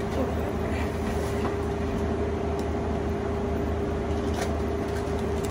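Steady machine hum: a low drone with a constant mid-pitched tone, unchanging throughout, with a few faint clicks of items being handled.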